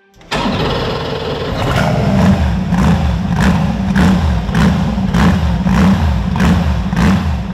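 A car engine starts up suddenly and runs at a lumpy idle, its sound pulsing a little under twice a second.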